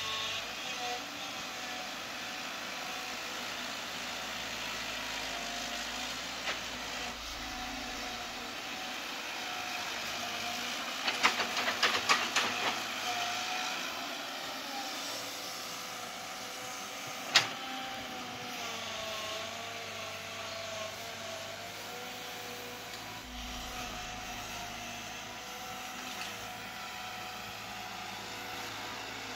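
Caterpillar 312B hydraulic excavator's diesel engine running steadily under working load, with a hydraulic whine that slowly shifts in pitch as the boom and bucket move. A burst of rapid clattering comes about 11 to 13 seconds in, and a single sharp knock about 17 seconds in.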